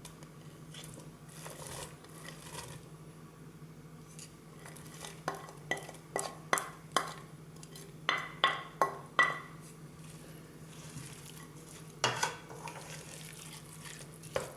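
A spoon clinking and tapping against cookware as ingredients are scraped into a pot, in a quick run of sharp knocks in the middle and a couple more near the end.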